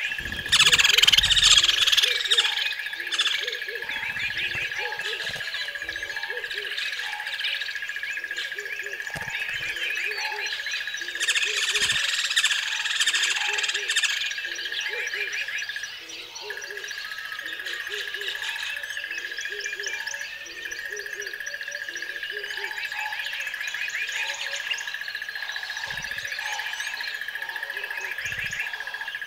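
Many birds chirping and calling, loudest in the first two seconds, over a steady high-pitched drone and low calls that repeat about once a second.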